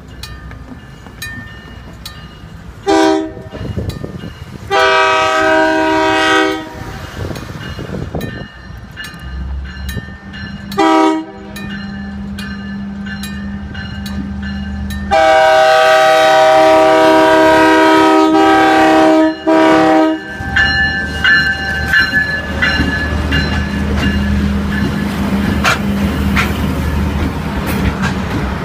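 Union Pacific genset switcher locomotive sounding its horn for a grade crossing: a short blast, a long one, another short one, then a long blast of about five seconds with a brief break near its end. A crossing bell rings steadily throughout. The locomotive's engine rumble builds from about the middle as it rolls up and passes close by.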